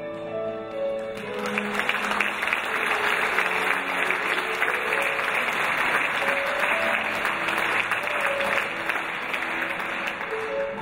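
Audience applauding, starting about a second in and fading near the end, over a Steinway grand piano that keeps playing underneath; the piano is heard clearly again as the applause dies down.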